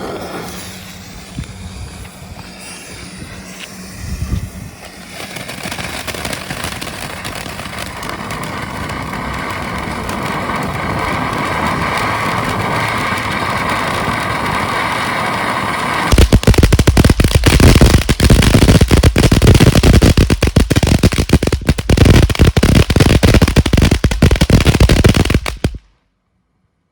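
Brothers 'Top Banana' firework fountain burning: a spraying hiss that builds over several seconds, then dense, loud crackling from about sixteen seconds in, cutting off suddenly near the end.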